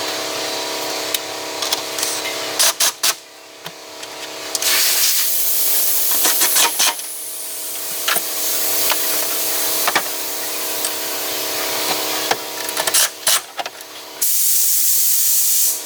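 Two long bursts of loud hissing, a couple of seconds each, with scattered sharp clicks between them over a steady low hum.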